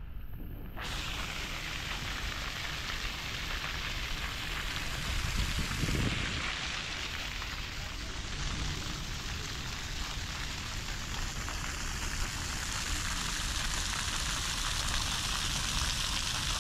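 Steady hiss of falling water: rain on wet paving, with park fountain jets spraying. A brief low rumble swells about six seconds in.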